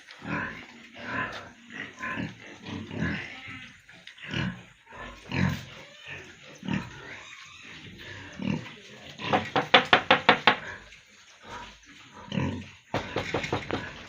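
Pigs grunting in irregular short grunts, with a fast run of about ten loud grunts about nine seconds in and another quick run near the end.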